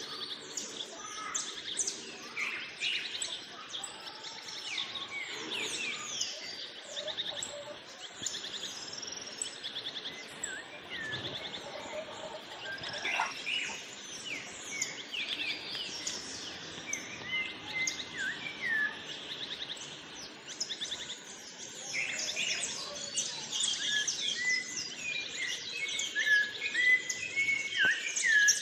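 A chorus of several birds singing and calling at once: many overlapping short chirps and falling whistles, with rapid trills, growing busier near the end.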